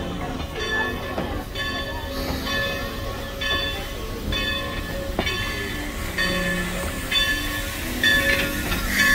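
Everett Railroad No. 11 steam locomotive's bell ringing steadily, about one stroke every two-thirds of a second, over the low rumble of the idling engine.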